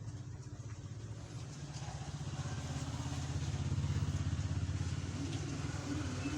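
A motor vehicle engine running with a fast, even pulse, growing louder to a peak a little past the middle and then easing slightly.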